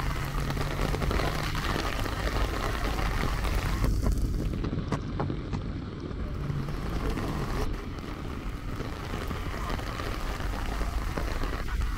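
Heavy rain pouring onto a paved city street: a steady hiss over a deep rumble. The higher part of the hiss thins for a few seconds near the middle.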